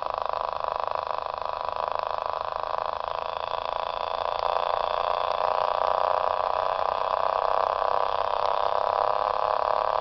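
Small reed-switch bobbin pulse motor with a spinning neodymium magnet rotor, running with a fast, buzzing hum as it revs up. The pitch rises slowly and the sound grows louder about halfway through.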